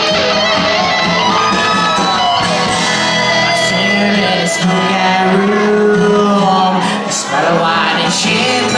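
A live band playing a rock song: guitars strummed over bass and drums, with a voice singing.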